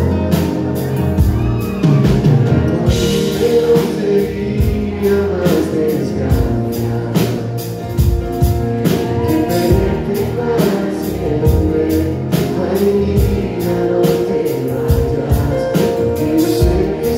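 Live pop ballad: a male voice singing in Spanish over strummed acoustic guitar and keyboard, with a steady beat ticking about three times a second.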